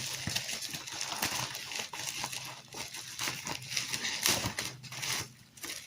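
Packaging crinkling and rustling as it is handled and worked open, a dense run of small crackles that eases off near the end.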